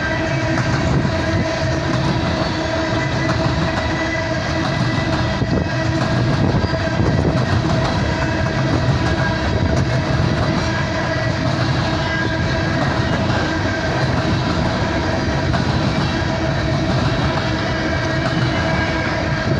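Empty coal train cars rolling past at steady speed: a continuous rumble of wheels on rail with clickety-clack, and steady ringing tones over it.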